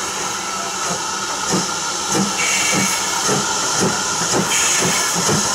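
BR Standard Class 4 tank steam locomotive 80104 working a train slowly, with steady exhaust beats about two a second over a constant hiss of steam.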